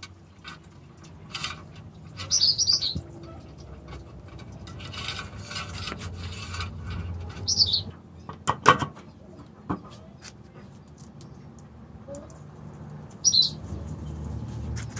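Birds chirping in short high calls every few seconds over a steady low background rumble. About nine seconds in there is a sharp knock, the loudest sound, as the plastic fan blade is handled onto the motor shaft, with a lighter knock a second later.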